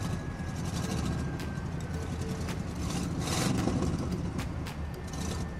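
Cartoon vehicle engine sound effect running steadily and low-pitched, with scattered light clicks and a brief rushing noise about three seconds in.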